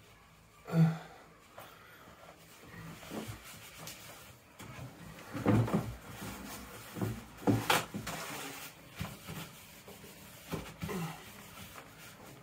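Handling noises around a bath: scattered knocks, taps and rubbing as the empty waste hole is wiped dry, densest from about five to eight seconds in, with a short grunt about a second in.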